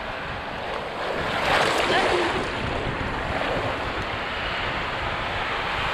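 Surf washing and breaking around the camera at water level, a wave swelling loudest about a second and a half in and another near the end.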